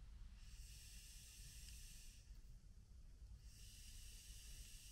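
Near silence with two faint, breathy hisses, each about two seconds long, with a short gap between them: a person breathing close to the microphone.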